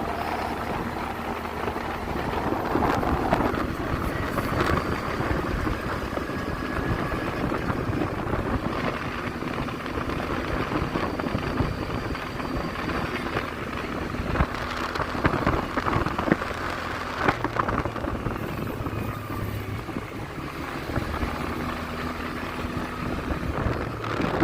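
Quad bike (ATV) engine running under way, its note shifting as it rides, with rough wind and road noise and a few knocks.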